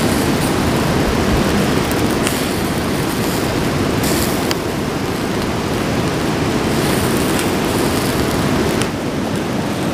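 Chicken tikka skewers sizzling over a charcoal grill under a steady, loud rushing noise. The sizzle flares briefly about four seconds in, as oil is brushed onto the meat with a bunch of leaves.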